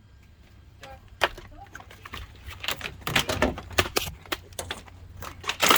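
Irregular clicks, taps and knocks of hands working on the car, several a second, with the loudest knocks near the end.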